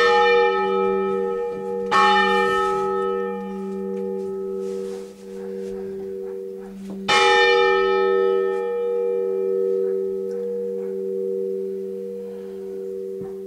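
A large bell tolling, struck near the start, about two seconds in and again about seven seconds in. Each strike rings on with a long, wavering hum that slowly fades.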